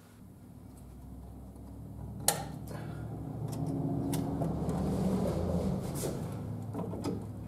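A few sharp metal clicks from the brake pedal and push rod hardware being fitted under the dash, over a low hum that swells for several seconds and then fades.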